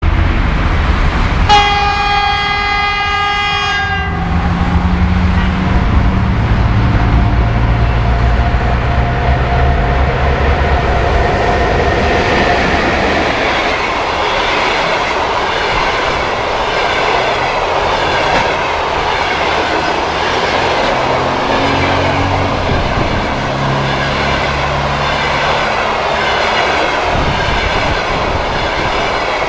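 EP1M electric locomotive sounding one high-pitched horn blast of about two and a half seconds as it approaches, then passing with a low steady hum. Its passenger coaches follow, wheels clattering rhythmically over the rail joints.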